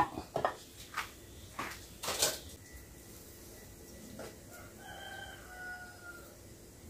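A few light clatters of kitchen utensils against a wok and glass dish in the first couple of seconds. Later, a rooster crows faintly, one drawn-out call lasting about a second and a half.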